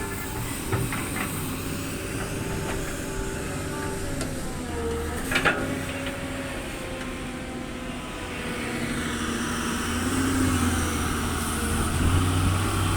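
Heavy diesel machinery running steadily, the engine growing louder about ten seconds in, with a sharp knock about five seconds in.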